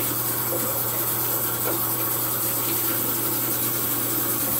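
Water running steadily from a bathroom sink tap as a face is rinsed under it.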